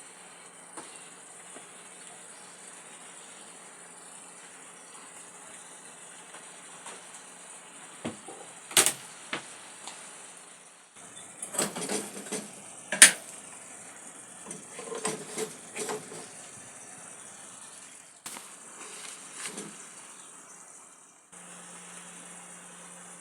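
Kitchenware clattering: scattered clinks and knocks of dishes and utensils being handled and set down, in a few short clusters over a steady hiss.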